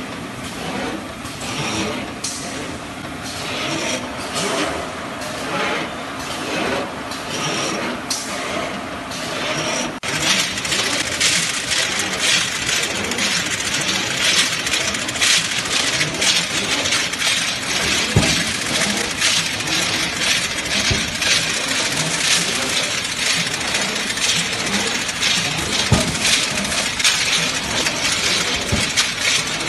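Automatic essential-oil filling machine running, with a dense rattle of many small clicks as small glass bottles knock together on the feed screw. About ten seconds in, the rattle grows louder and busier.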